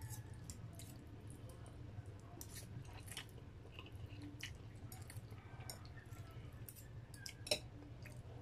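Close-up wet mouth sounds of eating noodle soup: noodles sucked in and chewed, with many small smacks and clicks. A single sharp click near the end is the loudest sound, over a low steady hum.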